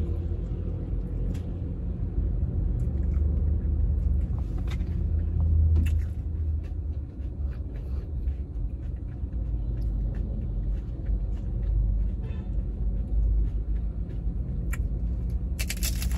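Steady low rumble of a car's idling engine heard inside the cabin, with faint clicks of a hard-shell taco being chewed. A short loud burst of noise comes right at the end.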